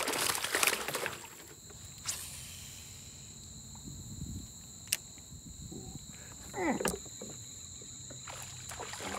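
Insects chirring steadily at two high pitches. Over them come handling noises: a rustle in the first second, sharp clicks about two and five seconds in, and a swish ending in a click near seven seconds.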